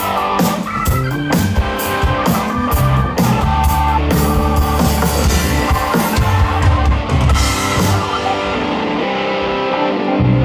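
Rock band playing live through a PA at a sound check: electric guitar, bass and drums. The drum and cymbal hits drop out about eight seconds in while the guitars carry on.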